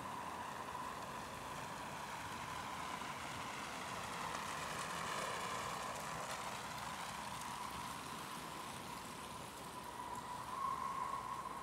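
City street ambience in deep cold: a steady hum, with a vehicle passing about midway. Near the end a car rolls by on cold, packed snow, its tires squeaking.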